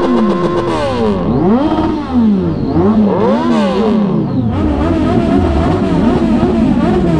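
Motorcycle engines being revved repeatedly. Their pitch climbs and drops in quick, overlapping blips about once a second, with more than one engine going at once.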